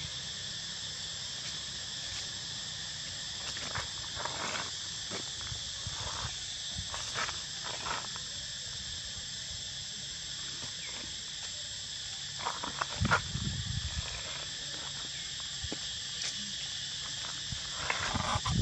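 Steady high-pitched chorus of insects shrilling outdoors, with scattered short rustles and crackles, louder about two-thirds of the way through and again near the end.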